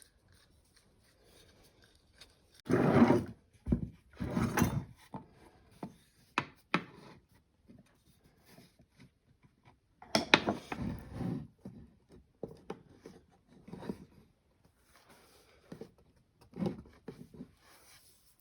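Wooden workpieces being handled and shifted on a workbench: several scraping rubs and knocks of wood on wood, the loudest about three seconds in, about four and a half seconds in and around ten seconds in, with a few sharp clicks between them.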